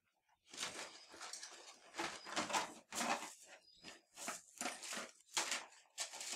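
Plastic doll fairy wings rustling and clattering as a hand rummages through them in a cardboard box: a run of short, uneven bursts.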